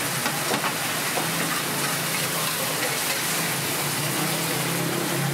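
Battered oysters frying in hot oil in a large flat iron pan, a steady sizzling hiss. A low steady hum comes in about a second in.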